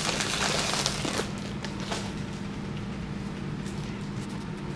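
Plastic snack packaging crinkling in the hands for about the first second, then fainter rustling and a few small clicks over a low steady hum.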